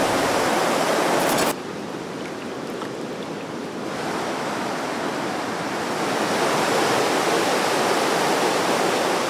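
Steady rush of a swift river running over rocks and riffles. It drops to a quieter, thinner rush about a second and a half in, then slowly swells again.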